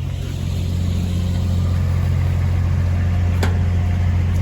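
Heavy diesel recovery-equipment engine running steadily under load, building a little in the first second, with a sharp metallic click about three and a half seconds in.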